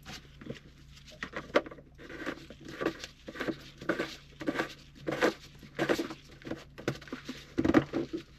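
Irregular clicks, taps and light knocks of hands handling the diesel heater's plastic casing as its lid is fitted and the unit is moved about.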